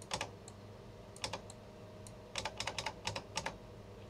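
Computer keyboard's Tab key tapped repeatedly to cycle a selection: a tap near the start, another about a second in, then a quick run of taps between about two and a half and three and a half seconds in.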